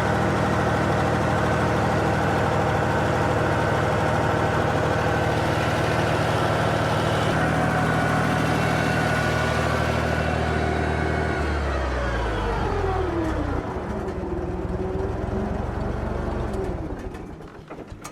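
International Harvester Farmall 706 tractor's six-cylinder engine running steadily. About eleven seconds in its pitch falls as it slows, and it runs down to a stop near the end.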